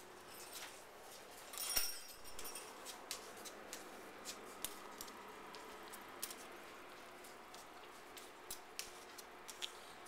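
An African grey parrot tapping and knocking against the camera and the surfaces around it: irregular sharp clicks a few times a second, with one louder knock and scuff about two seconds in.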